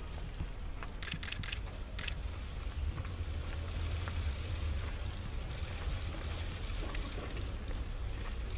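Steady low rumble under an even hiss, with a few sharp clicks about one and two seconds in.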